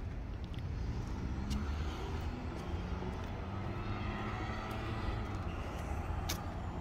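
Road traffic on a street: cars passing in a continuous low rumble that swells and eases, with a couple of brief sharp ticks.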